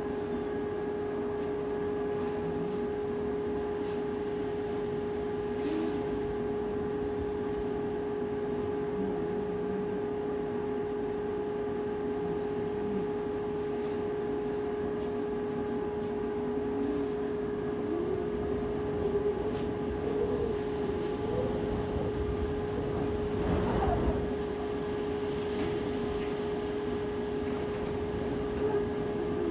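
Strong storm wind blowing and gusting, with a steady droning hum of constant pitch underneath. A stronger gust comes about three quarters of the way through.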